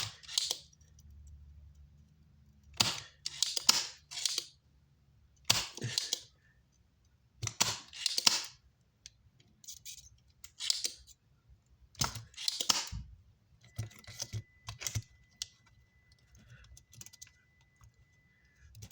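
Desoldering work on an amplifier circuit board: a series of short, sharp, hissing snaps every second or so as solder is sucked off the switch's pins. A faint steady high tone sounds during the last few seconds.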